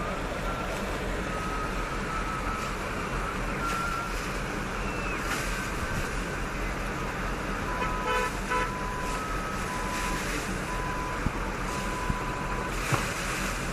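Road traffic noise: a steady rush of vehicles with repeated electronic beeps, and a short car horn toot about eight seconds in.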